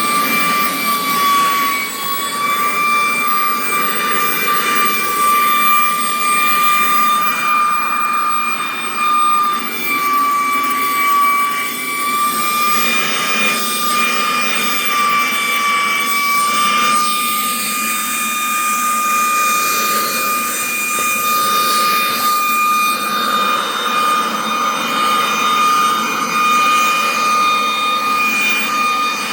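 WYZE cordless vacuum running, its motor making a steady high-pitched whine over a rush of airflow. The pitch sags slightly now and then as the load on the motor changes during vacuuming.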